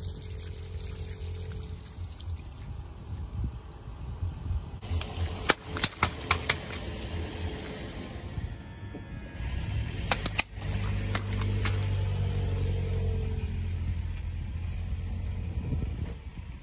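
A car creeping over inflated balloons on wet concrete: a steady low engine hum, with sharp balloon pops in two clusters, about five seconds in and again about ten seconds in, and water splashing out as water balloons burst.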